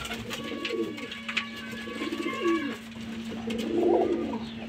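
Parwazi pigeons cooing in a loft, three or so low coo phrases one after another, over a steady low hum.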